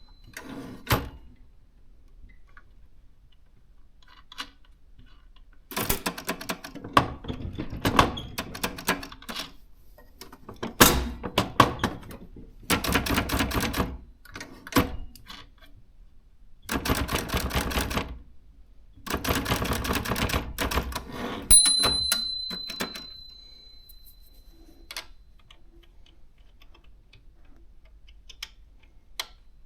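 Consul manual typewriter being typed on in several bursts of rapid keystrokes, then its end-of-line bell rings once and fades over a few seconds; after that only a few scattered clicks.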